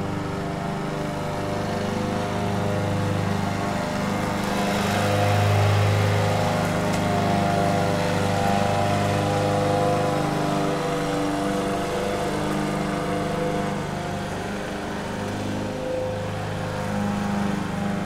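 Petrol walk-behind rotary lawn mower engine running steadily, its note wavering slightly and growing a little louder about five seconds in.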